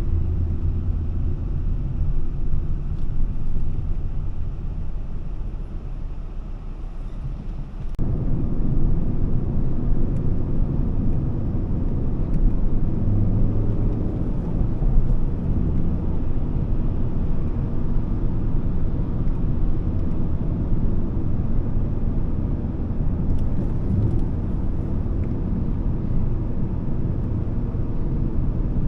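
Volvo S40's 2.4-litre five-cylinder petrol engine running with tyre and road noise, heard from inside the cabin while driving. The noise eases off briefly, then rises sharply about eight seconds in and holds steady.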